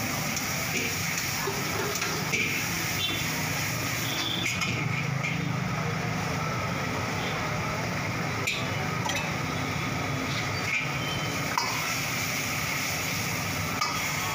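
Steel ladle stirring and scraping in a steel wok while chicken Manchurian sauce sizzles over a gas burner, with a few sharper metal clinks and a steady low hum underneath.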